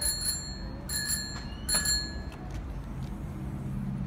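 Bicycle bell on a child's bike rung repeatedly, several quick rings close together, each leaving a bright metallic ring that dies away; the ringing stops about two seconds in.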